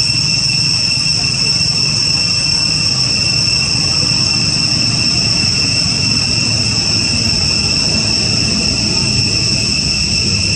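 A steady, shrill insect chorus droning without a break at a high, unchanging pitch, over a low steady rumble.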